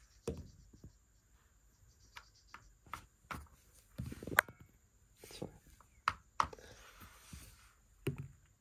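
Plastic board-game pieces and a die tapping and clicking on a Mensch ärgere dich nicht (Ludo) board: about ten separate light knocks at irregular spacing.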